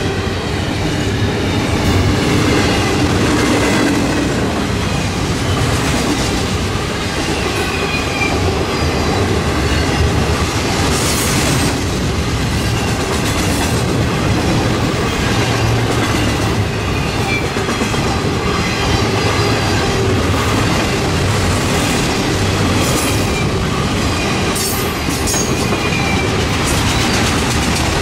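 Double-stack intermodal freight cars rolling past at speed: a steady rumble of steel wheels on the rails with clickety-clack over the rail joints. Faint thin wheel squeals and a few sharp clanks come through, mostly in the second half.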